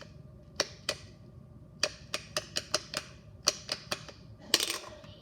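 Simple Dimple fidget toy's push-buttons being pressed: sharp clicks, two near the start, then a run of about ten quick clicks a few tenths of a second apart, and a short flurry near the end.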